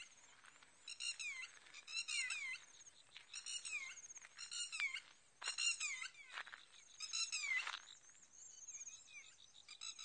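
Animals in wet fields calling over and over, a high call roughly once a second, each a quick cluster of short falling notes.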